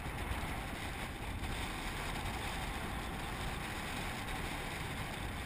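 Wind blowing across the microphone: a steady hiss with a low rumble.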